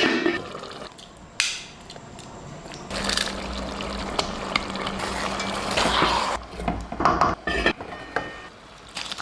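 Water pouring steadily into a cooking pot for several seconds, with a few sharp clinks of kitchen utensils before and after.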